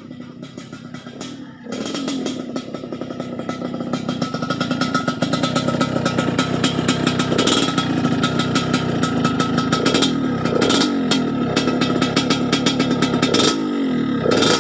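Yamaha RX-King's two-stroke single-cylinder engine comes in loudly about two seconds in with its crisp, raspy exhaust note, then runs with several blips of the throttle that rise and fall in pitch.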